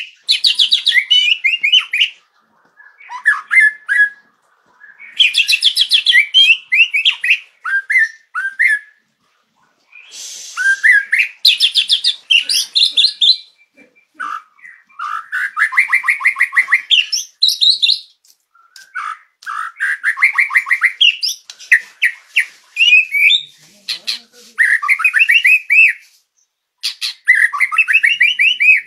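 White-rumped shama song: loud bursts of rapid trills, whistles and chattering notes, some phrases sweeping down in pitch, each a second or two long with short pauses between them. This is a masteran recording, the tutor song played to caged songbirds to prompt them to sing.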